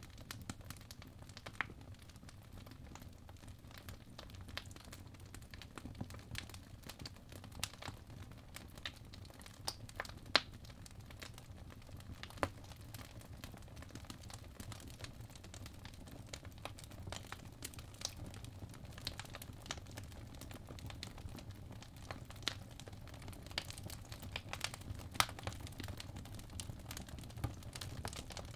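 An Apple Pencil's plastic tip tapping and stroking on an iPad Pro's glass screen while drawing: irregular light clicks and scratches, with a few sharper taps, over a steady low hum.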